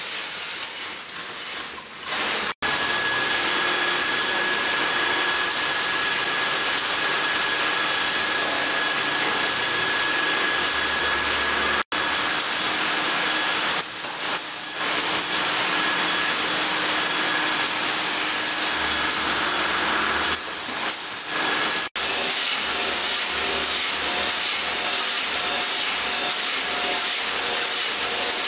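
Packaging machinery running in a factory: a steady mechanical whirr and hiss with a faint high whine, breaking off abruptly for an instant three times.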